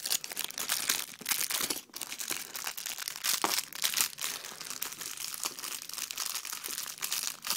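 Crinkling and rustling of packaging being handled: LEGO advent calendar cardboard and plastic, with irregular crackles all through.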